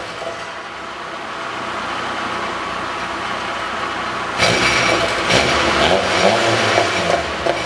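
Nissan Micra K10's four-cylinder engine running through a Magnaflow end silencer: a steady idle, then revved about halfway through, the exhaust note rising and falling before settling again near the end.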